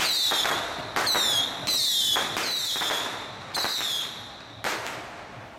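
Firecrackers going off: six sharp bangs about a second apart. Each of the first five is trailed by a short whistle falling in pitch, and the last is a lone crack near the end.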